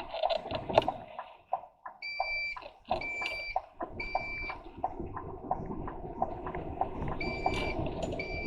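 Intermittent electronic beeping, with each steady high beep lasting about half a second: three beeps about two seconds in, then a pause, and the beeping resumes about seven seconds in. Under it are soft regular clicks, about two a second, and the low rumble of the lorry.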